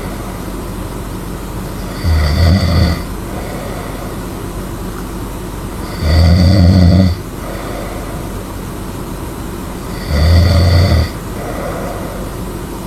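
A person snoring loudly in a slow, regular rhythm: three snores about a second long each, roughly four seconds apart, each followed by a softer breath, over steady background noise.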